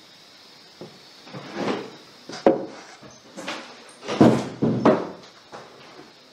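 A man getting up from a chair and walking across the room: a string of irregular knocks, scrapes and footfalls, with a sharp knock about two and a half seconds in and the loudest thuds about four to five seconds in.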